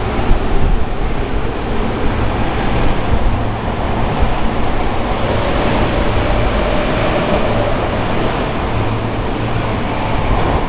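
Osaka Municipal Subway 21 series train running through an underground station, a loud, steady rumble and rush of wheels and motors. A faint whine rises slightly partway through.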